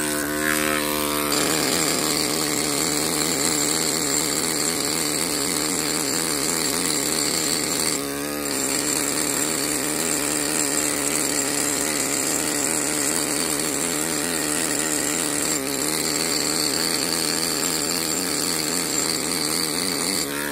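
Pneumatic hand machine (air carving hammer) fitted with a carbide cup chisel, running with a steady rapid buzz as it pecks the surface of granite. It lets up briefly about eight seconds in.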